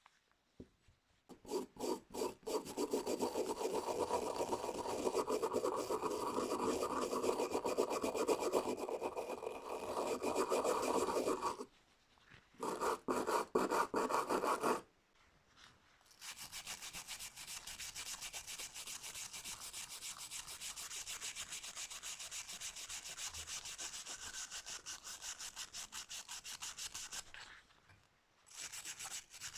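Hand abrasion of a screwdriver's parts: rapid back-and-forth rubbing strokes, coarser and lower for the first half with a short break, then after a pause a long stretch of finer, hissing sanding.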